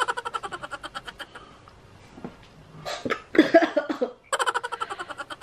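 A woman laughing in quick, breathy bursts, with a louder outburst about three seconds in. It is a reaction to a nasal swab being pushed up her nostril for a rapid COVID antigen test.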